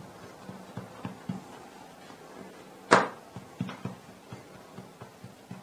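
Hands pressing and patting layered paratha dough on a silicone pastry mat: soft scattered taps, with one sharp click about three seconds in.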